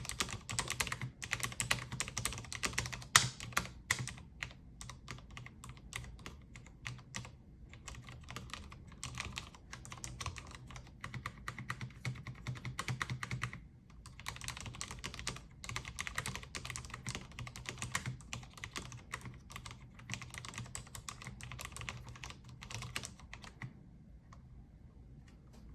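Typing on a Cherry MX Board 10.0 Low Profile RGB keyboard with Cherry low-profile red linear switches: fast, continuous keystroke clicks with short pauses about 7 and 14 seconds in, stopping near the end.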